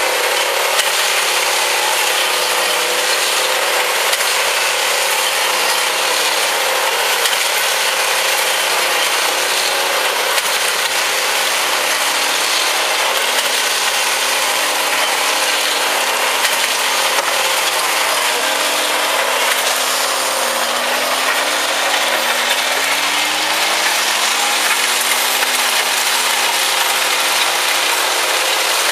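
Railway track-maintenance machines working on ballast, led by a Fairmont tamper: a steady, loud mechanical clatter of working gear on the stones over diesel engines whose pitch rises and falls, most clearly in the second half.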